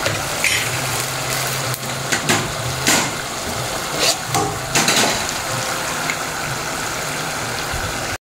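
Potato chips deep-frying in hot oil in an aluminium pot, browning late in the fry: a steady sizzle with a few sharp crackles. The sound cuts off briefly near the end.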